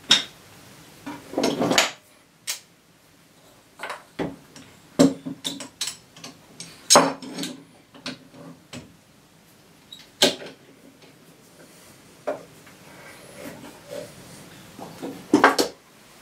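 Wooden blocks and a metal bar clamp handled on a wooden workbench: irregular knocks and clicks as the blocks are set in place and the clamp is fitted and tightened on them.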